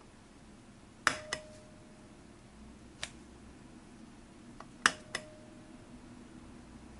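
Jaeger-LeCoultre Chronoflite aircraft clock's elapsed-time pushbutton mechanism clicking: a double click about a second in, a single click at about three seconds and another double click near five seconds. Each double click leaves a short metallic ring. The last press resets the elapsed-time hands to zero.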